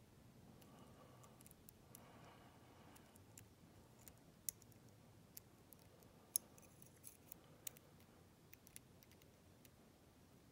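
Faint, irregular metallic clicks and ticks of a lock pick and tension tool working the pins inside a ZETA dimple slider padlock, with a few sharper clicks in the middle stretch.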